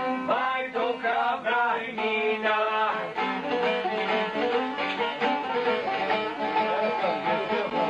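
Men singing an Albanian song to a plucked string instrument.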